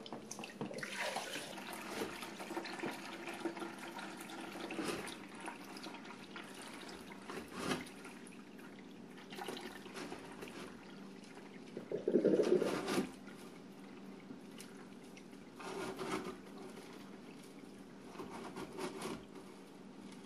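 Aquarium gravel vacuum siphoning: water running and splashing through the hose into a bucket while the tube works through the gravel. An irregular handling knock comes now and then, and a louder bump about twelve seconds in.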